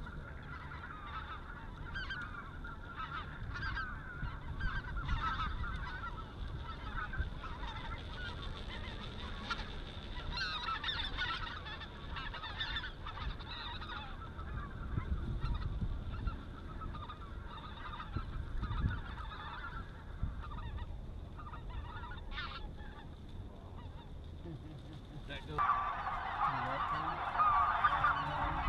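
Snow geese calling: a dense chatter of many high honks from flocks, suddenly much louder near the end.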